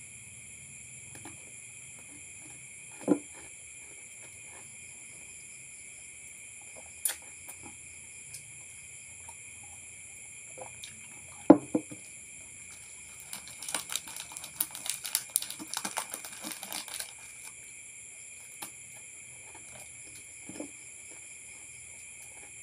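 Handling sounds at a table while snacking: a few scattered knocks, the loudest about halfway through as a drinking glass is handled, then a few seconds of crinkling, crackly noise. A steady high-pitched whine runs underneath.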